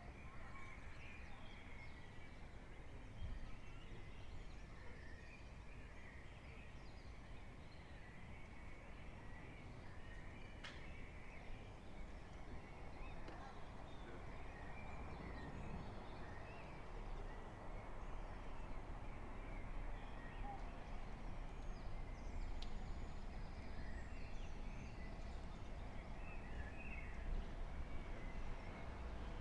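Birds chirping and singing, many short calls, over a low steady background rumble that grows a little louder near the end.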